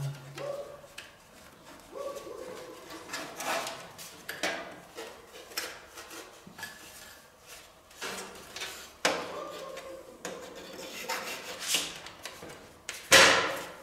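Plastic top panel of a PC case being handled and fitted onto the metal case: irregular rubbing and scraping with scattered clicks and knocks, and a loud knock near the end as it is pressed down into place.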